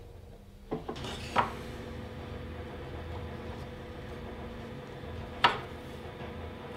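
Three short, sharp knocks, two about a second in and one near the end, like objects being set down or tapped, over a steady low hum.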